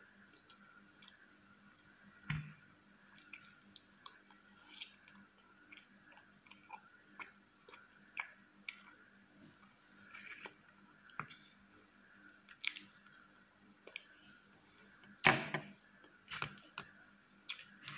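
Close-miked mouth sounds of a person chewing soft cream cake: scattered small wet clicks and smacks over a faint steady hum, with a louder knock near the end.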